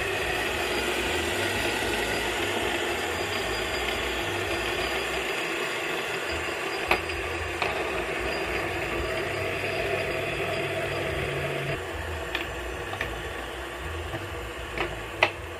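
Several metal fidget spinners spinning on a hard tabletop, a steady rattling whir of their bearings. A few sharp clicks come as a finger flicks and touches them, most of them near the end.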